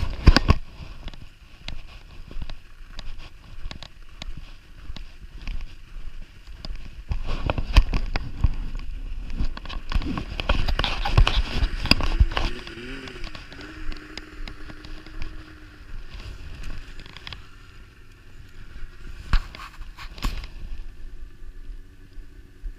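Wind buffeting the microphone in uneven gusts, with snowmobile engines running nearby. An engine note wavers and then holds steady for a few seconds just past the middle.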